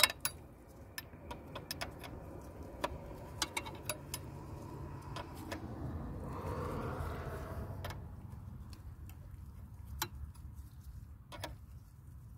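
Sharp metallic clicks and clinks of a 5/8 wrench on the steel fuel line nut at a 7.3 Powerstroke's fuel pressure regulator as the nut is loosened. The clicks come thick and fast for the first few seconds, then only now and then.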